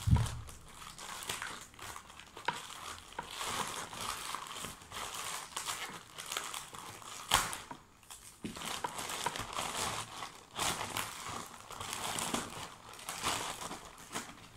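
Plastic wrapping crinkling and rustling as it is pulled and worked open by hand. There is a dull thump at the very start and a single sharper crackle about halfway through.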